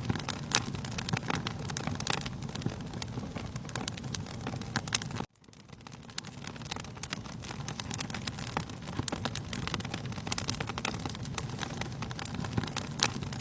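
Wood fire in a fireplace crackling, with many sharp pops over a steady low rumble. About five seconds in, the sound cuts out suddenly and fades back in, as at the seam of a looped recording.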